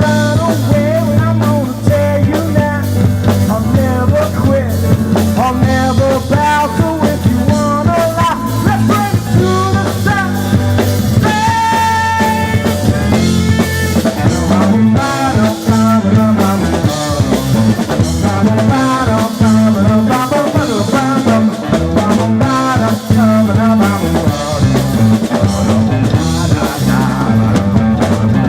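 Live blues-rock band playing an instrumental stretch: bass and drum kit keep a steady groove while a lead line above bends up and down in pitch, holding one long note about halfway through.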